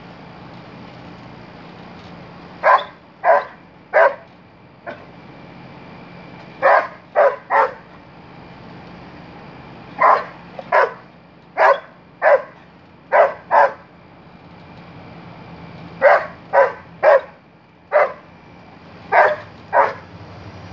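Dog barking in quick runs of two or three barks, about eighteen barks in all, as it excitedly chases a light spot around the yard.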